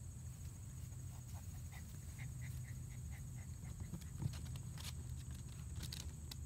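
Golden retriever puppies' paws scrabbling and clicking on a hard plastic sandbox lid, with a few sharp clicks in the second half. A short run of faint high chirps comes about two seconds in.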